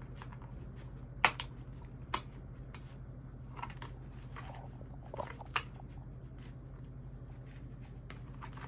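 Large scissors snipping through packaging: three sharp snips about a second in, at two seconds and at five and a half seconds, with a couple of fainter ones between, over a steady low hum.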